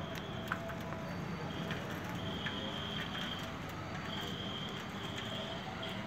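A cockatiel moving about in a wire cage: small clicks and taps over a steady low hum. A thin, high, steady tone comes and goes about five times, each lasting up to about a second.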